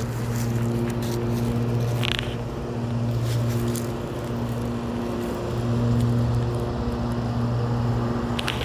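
A steady low mechanical hum with a few overtones, swelling and fading every couple of seconds, over a background hiss. A brief higher squeak comes about two seconds in.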